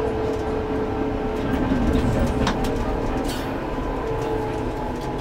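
Tatra T4D-M tram running along the track, heard from the driver's cab: a steady low rumble with a steady humming tone, and a few sharp clicks about halfway through.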